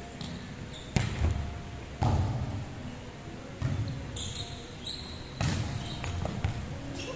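Volleyball rally in a sports hall: four sharp smacks of hands and arms hitting the ball, each echoing briefly in the hall, with short sneaker squeaks on the wooden court between them.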